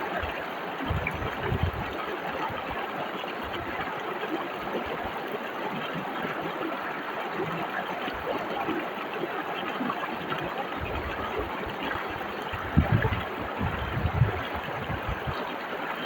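White-water river rushing in a steady hiss, with low rumbling thuds about a second in and again in a cluster in the last third, the loudest near the end.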